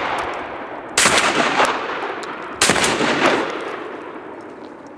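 Two shots from a Baikal MP-153 semi-automatic 12-gauge shotgun, about a second and a half apart, each followed by a long echo that fades out slowly.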